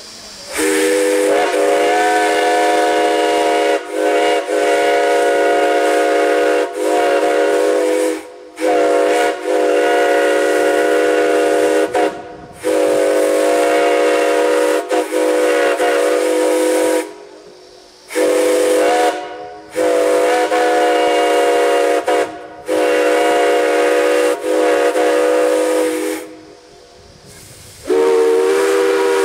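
Multi-chime steam whistle sounding a chord of several notes in a series of long blasts, with short breaks between them and a hiss of steam.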